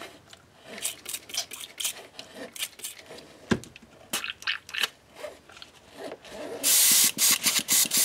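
Airbrush being flushed clean of yellow paint: a string of short spritzes of cleaner, then near the end a loud hiss of air and cleaner blown through the airbrush, followed by a quick run of short bursts. There is a single knock about halfway through.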